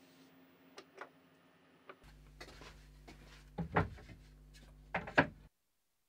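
Hand tools being handled on a wooden workshop tool rack. A few faint clicks come first. After about two seconds a low steady hum starts, and two louder clusters of wooden and metal clacks follow, the second near the end, before the sound cuts off abruptly.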